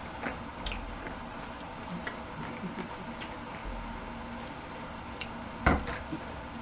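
Close-miked chewing, with small wet mouth clicks and squishes. A single sharp knock comes about five and a half seconds in.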